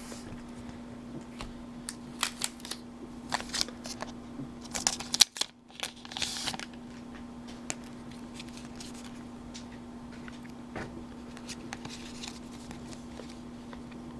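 Pokémon trading cards and a foil booster pack being handled: a few short rustles and clicks in the first half, the loudest about five seconds in, then quieter handling over a steady low hum.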